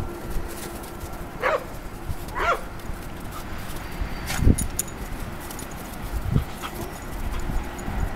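Dogs at rough play: two short high yips about a second apart, then a few dull thumps.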